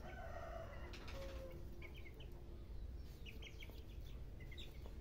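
Young chickens calling faintly: a few short, high peeps in small clusters.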